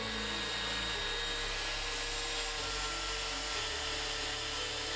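Hand router with a large straight bit running steadily at full speed as it is slid along a sled jig, planing the end-grain face of a log slice flat.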